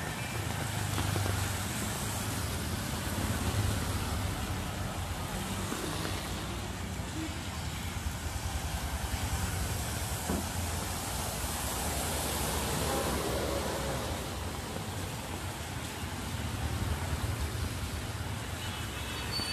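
Road traffic on a rain-wet city street: motorbike and car engines with tyre hiss on the wet road, and a bus passing close by about halfway through.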